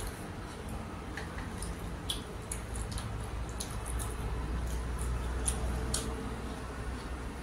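Fingers squishing and working a sauce-coated hog plum stone from amra chutney on a ceramic plate, with scattered small wet clicks, over a low steady hum.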